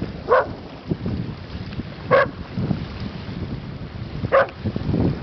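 Australian Shepherd barking three times, about two seconds apart, warily at a yellow buoy in the water. Wind rumbles on the microphone throughout.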